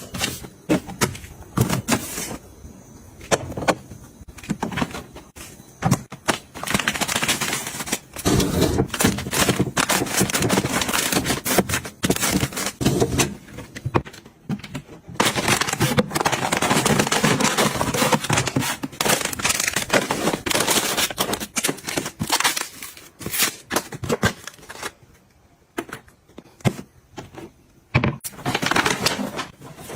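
Household items being handled and set down: irregular clicks, taps and clatter, with longer stretches of rustling and scraping, and a quieter gap near the end.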